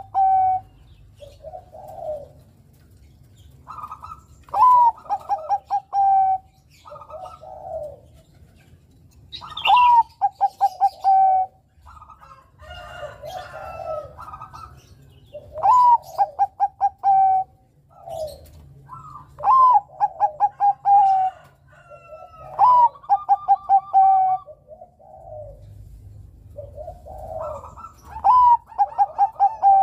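Zebra dove of the Bangkok song breed (perkutut Bangkok) singing: phrases every four to six seconds, each a higher opening note that drops into a quick run of short coos, with softer cooing between the loud phrases.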